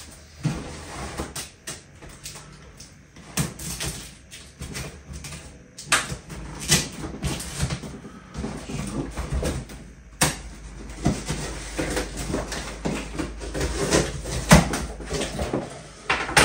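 Cardboard shipping box being opened by hand: irregular scraping, rustling and knocking of the cardboard as its flaps are worked open, with a sharper knock near the end.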